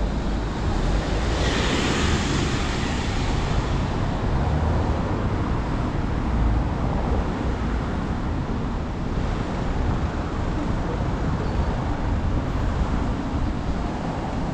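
Steady city street traffic noise with a deep rumble, and a vehicle swishing past about two seconds in.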